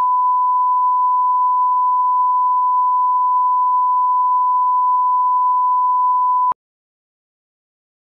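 Television colour-bar test tone: a single steady pure tone that cuts off abruptly about six and a half seconds in.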